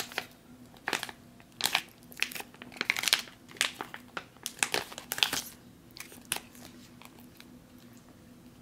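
Crinkling of a Prego Ready Meals microwavable plastic pouch, handled and torn open at its tear notch, in irregular bursts that die down after about six seconds.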